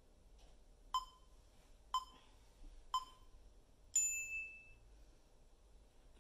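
Interval-timer countdown beeps: three short dings a second apart, then a longer, higher tone marking the end of the timed stretch and the switch to the other side.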